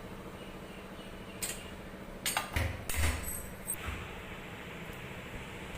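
A few clinks and knocks of kitchen utensils, clustered between about one and a half and four seconds in, some with a brief metallic ring, over a steady low hum.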